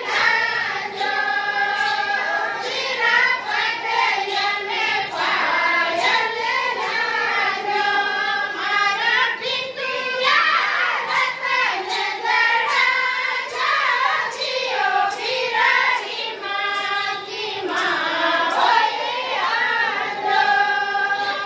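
A group of Rajasthani women singing a mayra folk song together in unison, with sustained, bending sung lines. Regular claps keep the beat under the voices.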